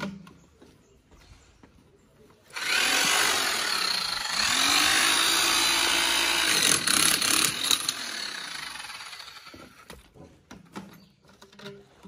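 A handheld electric power tool starts abruptly about two and a half seconds in and runs loud for about five seconds as it works on drain pipe work, then winds down and fades over the next two seconds. Light knocks and handling sounds follow near the end.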